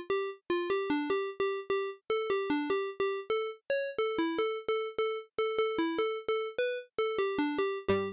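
Kilohearts Phase Plant software synthesizer playing a melody of short plucked notes, about four a second, each starting sharply and fading. A bass part joins right at the end.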